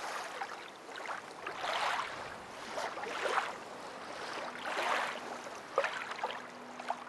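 Small waves washing up over sand, the foamy surf rising and falling every second or two.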